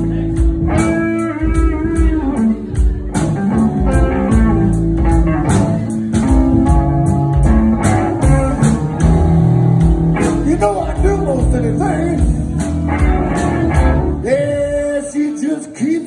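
Live blues band playing: electric guitars over bass, drums and keyboard. About a second before the end the drums and bass drop out, leaving guitar notes.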